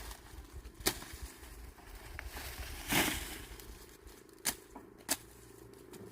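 Dry corn plants rustling as ears are picked, with a few sharp snaps as ears are broken off the stalks, and one longer rustle of leaves about three seconds in.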